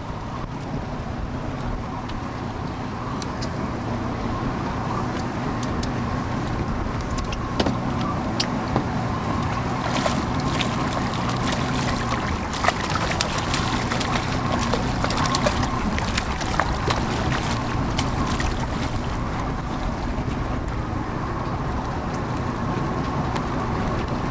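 Boat motor running steadily. Through the middle of the stretch, a hooked jack crevalle thrashes and splashes at the surface beside the boat, in a run of sharp splashes and slaps.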